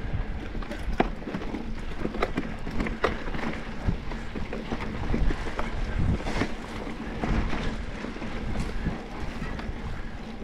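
Mountain bike being ridden on a dirt trail: wind buffeting the microphone over a low rumble, with scattered clicks and knocks from the bike.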